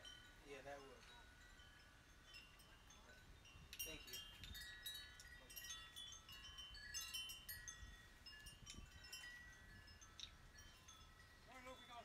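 Faint wind chimes ringing irregularly, several metal tones overlapping, busiest from about four seconds in.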